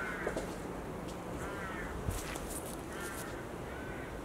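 A crow cawing three times, about a second and a half apart, with short crackles of footsteps through undergrowth near the middle.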